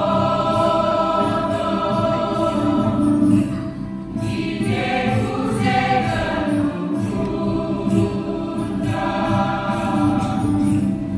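Church choir singing a hymn of praise together, with sustained held notes and a short breath between phrases.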